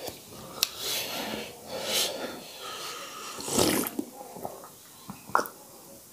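Heavy, hissing breaths in and out through the mouth, with a loud snort-like breath about three and a half seconds in, from men who have just eaten green chillies and spicy achar, then a few small sips and swallows of water from a glass.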